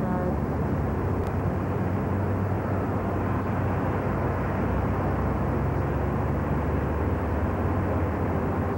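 Steady, even low rumble with a hiss over it: outdoor background noise with no distinct events.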